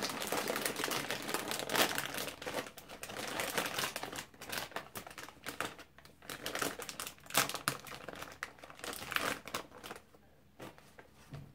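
A Ritz Crisp & Thins snack bag crinkling and rustling as it is pulled open by hand. It dies down about ten seconds in.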